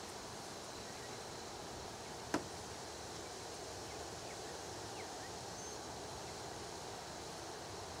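Steady outdoor background noise with a single sharp click a little over two seconds in, and a couple of faint short chirps around the middle.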